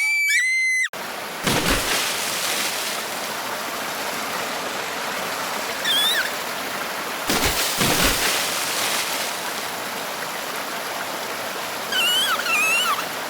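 High sliding tones that cut off about a second in, then a steady rushing noise, like running water, with two deeper whooshing swells. Short high squeaky chirps come in briefly near the middle and again near the end.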